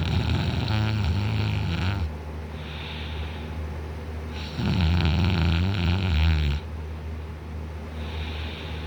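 A man snoring in deep sleep, lying on his back with his mouth wide open: two long, loud snores of about two seconds each, the second about halfway through, with softer breathing between them. A steady low hum runs underneath.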